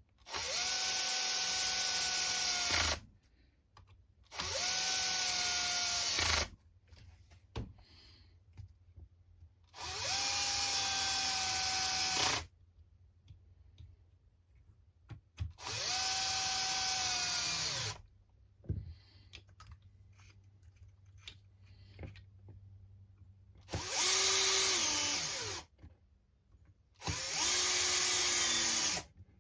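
Small cordless power driver running in six short bursts of about two seconds each, driving screws during chassis assembly; the motor whine rises as each burst starts and drops as it stops, and the last two bursts sag in pitch under load. Light clicks of parts being handled fall between the bursts.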